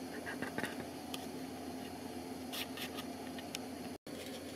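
Steady room hum with a faint hiss and a few small clicks and ticks. The sound drops out completely for a moment near the end.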